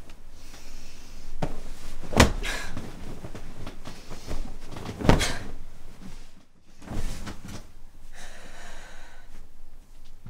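Bed covers rustling as someone shifts about in bed, with two sharp thumps about two and five seconds in.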